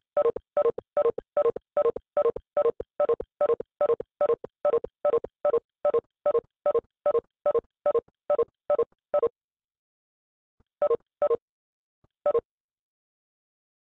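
Video-call app's participant-leave chime, a short identical beep repeated more than twenty times in quick succession, then three more after a pause, as attendees drop out of the meeting.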